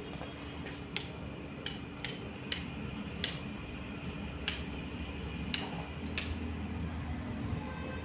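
Sharp, irregular clicks, about eight in all, unevenly spaced, over a steady low hum.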